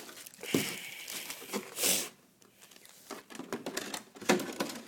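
Plastic bag crinkling and rustling, with scattered light clicks and knocks from a hard plastic RC truck body being handled. There is a short lull about two seconds in.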